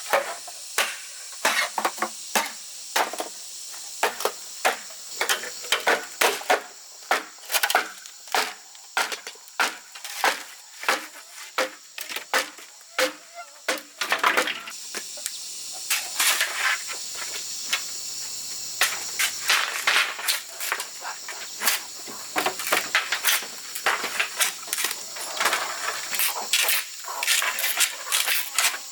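Repeated sharp knocks of a tool striking wood, irregular at about two a second, coming quicker and denser in the second half. A steady high insect buzz runs underneath.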